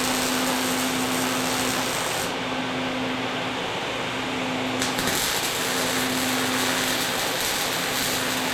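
Angle grinder running on steel, with a steady motor whine under a loud grinding hiss. The high end of the grinding noise eases for a couple of seconds in the middle, then comes back. Near the end the sound stops.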